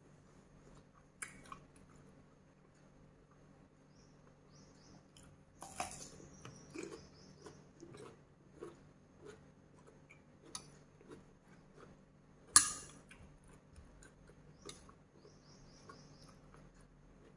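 Close-miked chewing of crisp raw vegetable, soft and repeated about twice a second in the middle stretch. It is broken by a few sharp clicks, the loudest about twelve seconds in.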